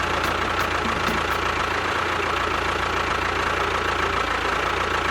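An engine running steadily at idle with a fast knocking rattle and a faint steady whine.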